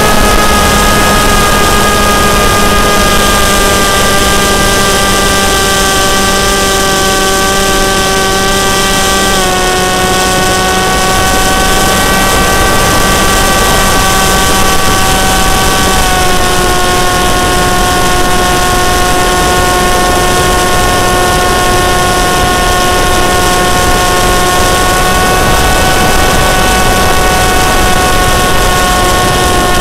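Motor and propeller of a 36-inch flying-wing RC plane, heard from a camera mounted on the plane: a loud, steady whine over a rushing noise. The pitch drops in two small steps, about a third of the way in and about half way.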